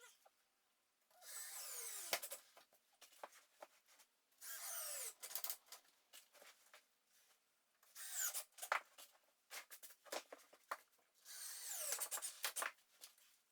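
A power drill running in four short bursts about three to four seconds apart, each a second or so long with its pitch dropping. This fits driving screws, such as drywall screws.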